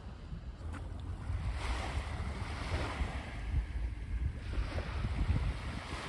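Sea waves washing in, with gusts of wind rumbling on the microphone.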